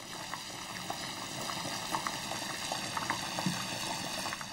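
Arroz brut, a rice and vegetable stew in broth, bubbling at a steady boil in a terracotta casserole over a gas flame, with many small scattered pops.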